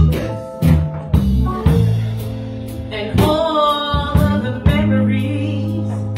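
Live blues band playing a slow groove: drum kit hits, long held bass notes and keyboard chords. About three seconds in a female singer's voice comes in over the band, wavering on a held note.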